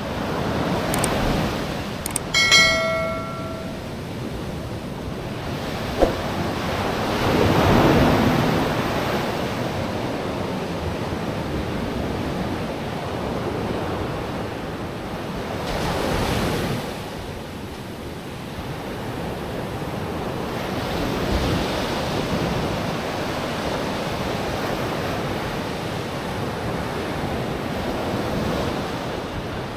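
Ocean surf breaking and washing ashore, swelling and easing every several seconds, with wind buffeting the microphone. A short high-pitched call sounds about two and a half seconds in, and a sharp click about six seconds in.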